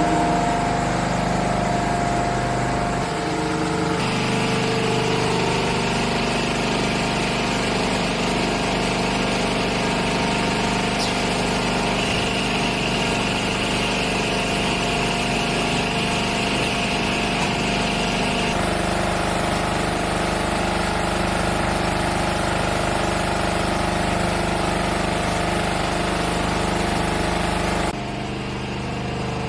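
Automated multi-needle quilting and cutting line for blankets running: a steady mechanical hum with several steady tones. The sound shifts abruptly a few times and drops a little in level near the end.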